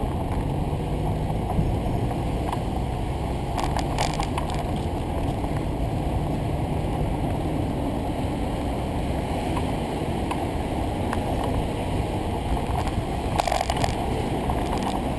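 Steady wind rush on a bicycle-mounted camera's microphone while riding, with a few brief clicks and rattles from the bike.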